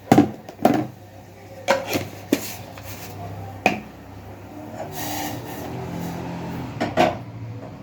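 Kitchen utensils knocking and scraping: a spoon and containers clatter with several sharp knocks, and there is a stretch of rubbing or scraping near the end.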